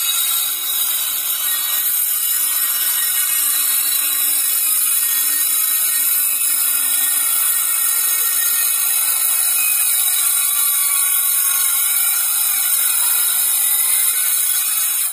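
Circular saw with a metal-cutting blade cutting through sheet metal: a loud, steady, high-pitched screech that runs without a break and stops abruptly at the end.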